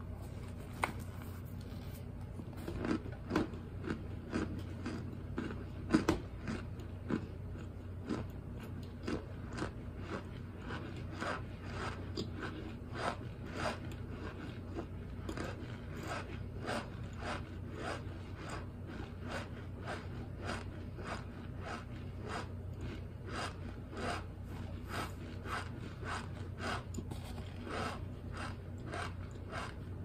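Mouth chewing crunchy chunks of baked Argo cornstarch: a steady run of short crunches, about two to three a second.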